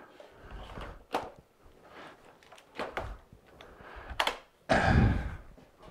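Plastic parts of a 4 HP, 8-gallon shop vac being handled and fitted back together: scattered clicks and knocks, then a louder thunk near the end.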